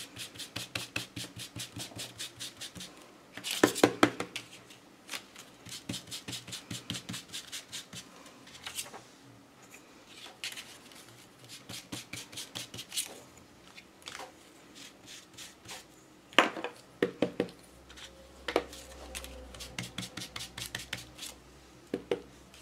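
An ink blending tool dabbed rapidly through a plastic stencil onto paper: runs of quick, light taps, several a second, broken by pauses. A few louder knocks come about 4 s in, between about 16 and 19 s, and near the end.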